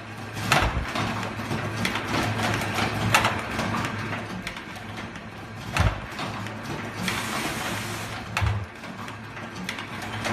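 Automatic ear-loop punching machine running: a steady low hum under continuous fast mechanical clicking and clatter, with a few heavier thumps and a hiss lasting about a second near the middle.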